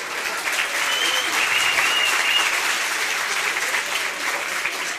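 Theatre audience applauding steadily, with a brief high wavering call rising over the clapping about a second in.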